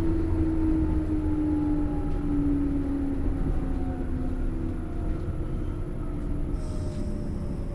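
Inside a JR 107 series electric train car, the traction motor and gear whine falls steadily in pitch over a constant rumble of wheels on rail as the train slows. There is a brief high-pitched hiss about seven seconds in.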